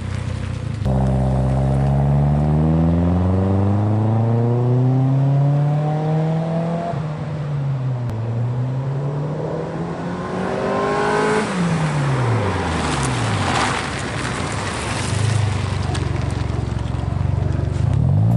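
1999 Mitsubishi Mirage's 1.5-litre four-cylinder exhaust through an N1-style stainless muffler with a 4-inch tip, accelerating away with the exhaust note rising in pitch. The pitch dips about eight seconds in as the automatic gearbox upshifts, climbs again, then falls as the car lets off. A steadier, lower exhaust tone follows near the end as the car comes back.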